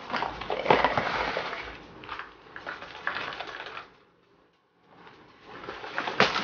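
Rustling and light knocking of a bundle of small zippered hard-shell pouches being handled and shuffled, with scattered small clicks. The handling stops for about a second a little past the middle, then starts again and grows.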